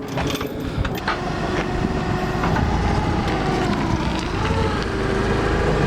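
Forklift engine running steadily, with a wavering hum whose pitch dips briefly a little past halfway, and a few metal knocks in the first two seconds.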